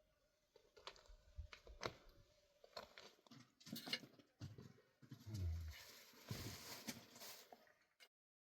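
Faint scattered taps, clicks and short rustles, with a soft low thump about five seconds in, then dead silence near the end.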